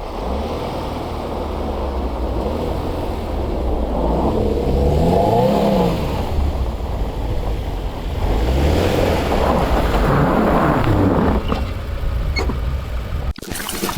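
Car engine revving and accelerating, its pitch rising and falling twice, then cutting off abruptly near the end.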